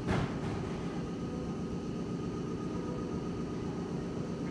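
Steady hum of a station platform with an electric train waiting to depart, with a short hiss right at the start.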